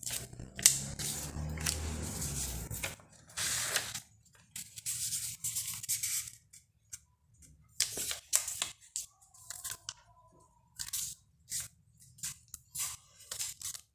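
A sheet of paper being handled and folded: irregular crisp rustles and crackles, denser for the first three seconds and then in short separate bursts.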